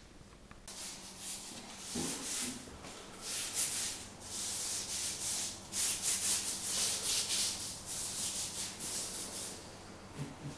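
Repeated rasping scrubbing strokes of an abrasive pad or brush worked by hand over a terracotta tile floor, several strokes a second, starting just under a second in and easing off near the end.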